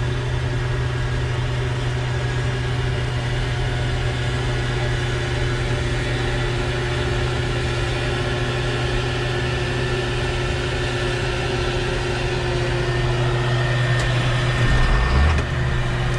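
Case IH 2388 combine running with a steady drone, with a low rumble that swells briefly near the end.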